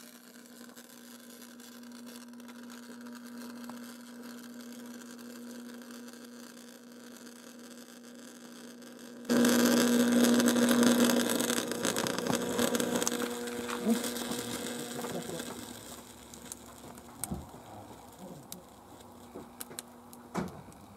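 A steady hum, then about nine seconds in a sudden loud high-voltage arc from a microwave-oven-transformer supply, buzzing and crackling as it burns into a flat-screen TV. After several seconds it dies down to scattered crackles and pops.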